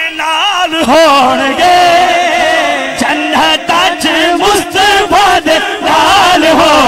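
A man's voice singing a Punjabi devotional kalam (naat) through a microphone, in long wavering, ornamented lines.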